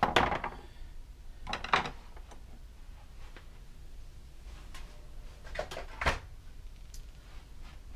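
Metal hand tools and small parts being handled and set down on a workbench: separate knocks and clatters, one right at the start, another about a second and a half later, and two close together around six seconds in.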